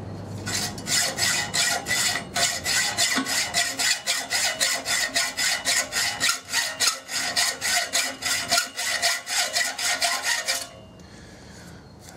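Hacksaw cutting through a threaded metal bolt held in a vise, to cut the head off: steady, even back-and-forth strokes, about three a second, which stop about ten and a half seconds in.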